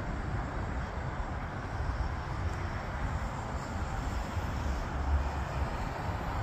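Business jet engines running on the airfield: a steady roar with a deep rumble, and a faint high whine about halfway through.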